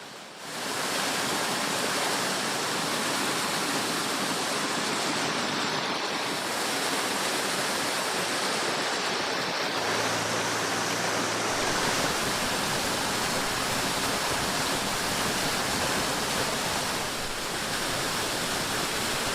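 Waterfall: a steady, dense rush of falling water that starts abruptly about half a second in.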